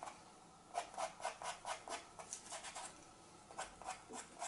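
A pastel pencil scratching across pastel mat paper in short, quick strokes, several a second, as fur is drawn in. The strokes come in three short spells with brief pauses between them.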